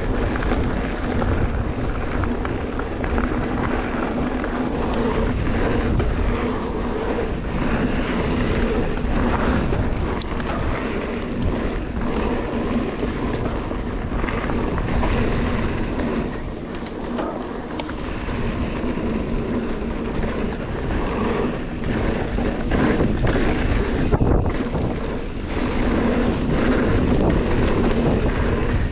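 Giant Trance X mountain bike riding a dirt trail: knobby tyres rolling on hardpack with a steady low hum, and the bike clattering over bumps, under constant wind noise on the camera microphone.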